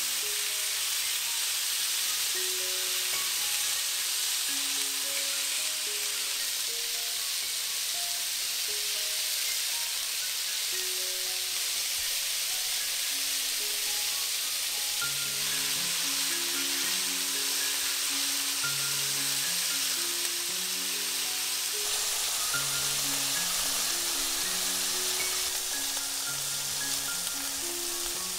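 Pieces of pork neck searing over high heat in vegetable oil in a frying pan, a steady sizzle as they brown. A light melody of separate notes plays as background music over it.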